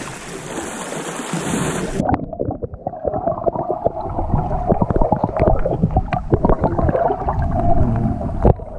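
For about two seconds, wind and sea noise hiss at the surface. Then it cuts to muffled underwater sound through a submerged action camera: gurgling water with irregular clicks and knocks over a steady hum.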